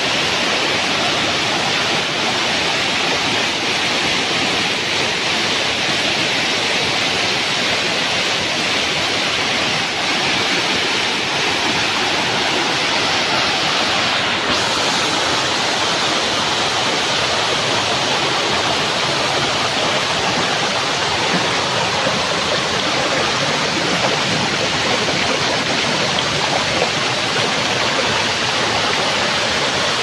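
Waterfall cascading down a steep rock face, heard up close: a loud, steady rush of falling water.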